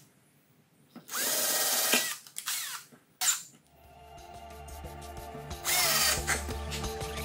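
Cordless drill-driver running in short trigger bursts, drilling into and driving screws through small steel tabletop fastener clips into the wood. There are two main runs, about a second in and near six seconds, each ending in a quick change of motor pitch, with a few short blips between them. Background music comes in about halfway.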